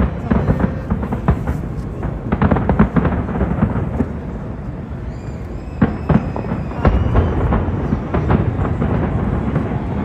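Fireworks display: rapid, overlapping bangs and booms, with a few high whistling tones a little past the middle.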